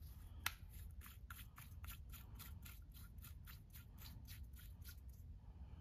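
Cardboard tube being twisted and pushed into a metal tube by hand, giving a faint run of short dry scrapes, about four or five a second, after one sharp click about half a second in.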